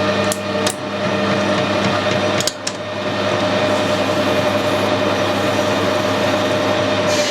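Metal lathe running steadily with the tool cutting under power feed at an increased feed rate, so the chips break off short instead of coming off stringy. A few sharp clicks come near the start and again about two and a half seconds in.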